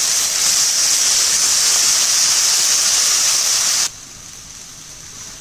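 Wet onion, garlic and ginger paste sizzling loudly in hot oil in a kadhai, just after being added. About four seconds in the loud sizzle cuts off suddenly, leaving a much quieter, steady frying hiss.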